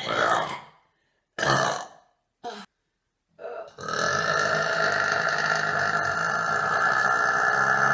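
A woman burping: three or four short burps in the first few seconds, then one long, drawn-out burp starting about four seconds in and holding a steady pitch.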